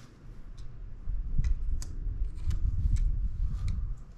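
Light metallic clicks and taps as a hex key and bash guard bolt are worked in behind a mountain bike's chainring, over low rumbling handling noise. The clicks come about five times, and the rumbling rises about a second in and fades near the end.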